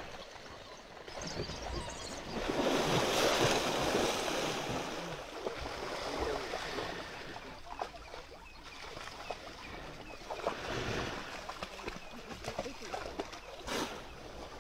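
River water splashing and churning as animals move through it. It swells loudest about three seconds in and again around eleven seconds.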